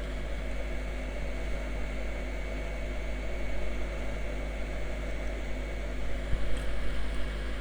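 Hot air rework gun blowing steadily: an even airy hiss over a low steady hum, as a phone's RAM/CPU chip is heated to lift it off the board.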